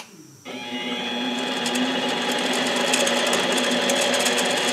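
Harbor Freight 7x10 mini lathe switched on: its motor starts about half a second in, spins up over about a second, and then runs steadily with a whine as the chuck turns the piston.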